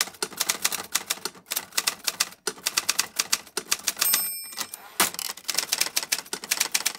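Manual typewriter typing in quick runs of key strikes. About four seconds in, the end-of-line bell rings once, and a second later there is a loud clunk of the carriage return before the typing resumes.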